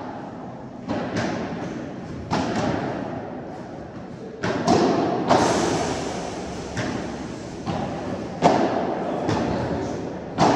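Padel rally: about a dozen sharp knocks at irregular intervals as the ball is struck by rackets and bounces on the court, each knock ringing out in the hall.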